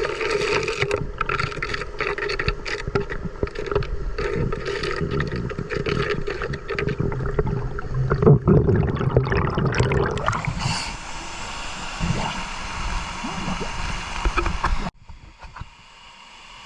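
Water and handling noise picked up by a camera sealed in a waterproof case during a dive, muffled by the housing: irregular clicks and knocks over a sloshing, gurgling wash. The sound turns to a steadier hiss about two-thirds through and drops off suddenly near the end.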